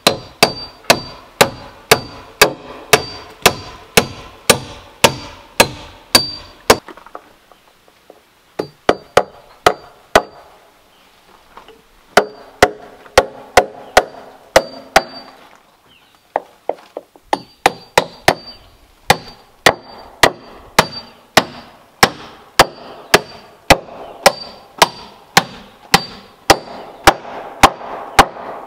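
Steel claw hammer driving nails into wooden deck boards: a steady run of sharp blows about two a second, each with a brief metallic ring. The blows pause twice.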